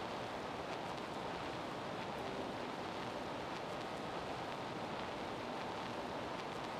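Steady, even hiss-like noise with no speech or music.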